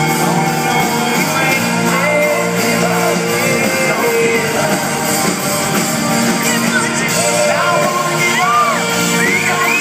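Live rock band playing a song with a lead singer, heard from among the audience in a large hall.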